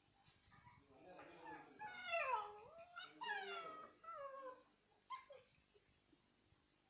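Puppy whining: a run of high calls, each falling in pitch, between about one and five seconds in, with one short call just after.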